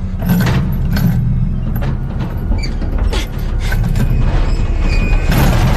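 Heavy iron chains creaking and clanking under strain, with several sharp metallic clanks over a deep rumble.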